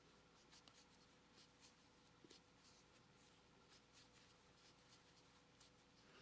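Near silence, with faint scratchy rustling and soft ticks of yarn pulled through loops on a metal crochet hook as a foundation chain is worked.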